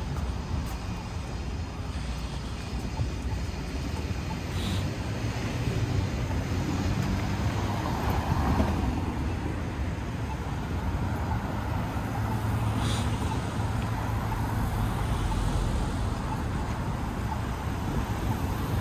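Urban street ambience: a steady rumble of road traffic, swelling briefly about eight seconds in as a vehicle goes by.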